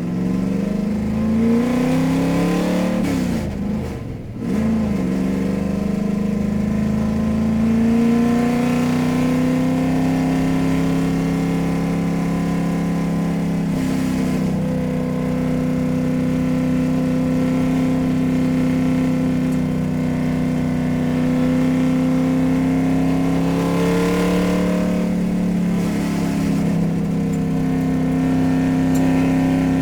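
Car engine revving up, then dropping briefly and picking up again as if through a gear change, then running at fairly steady revs with small changes in pitch.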